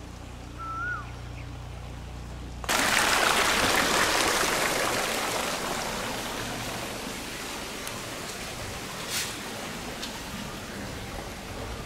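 Garden fountain's water jets splashing into its stone basin, coming in suddenly about a quarter of the way in and slowly fading away. Before it, a steady low hum and one short whistled chirp.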